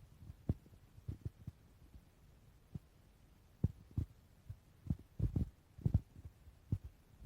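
Stomach gurgling heard close up: short, low, irregularly spaced gurgles and pops, bunched together about five to six seconds in.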